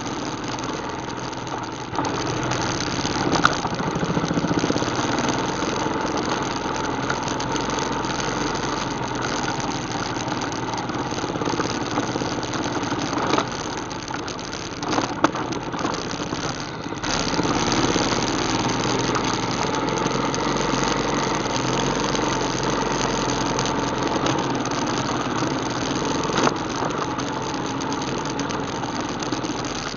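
ATV engine running as the four-wheeler is ridden along a trail, its level dipping briefly about halfway through, with a few short knocks.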